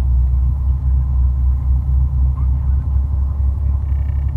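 Heavy truck's diesel engine running, heard from inside the cab as a steady low rumble.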